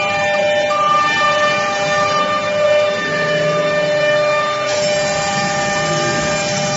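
A 1325 CNC router's water-cooled spindle whines at high speed as its bit cuts circles into a board. The whine is steady and made of several held tones over a cutting hiss, which turns brighter about five seconds in.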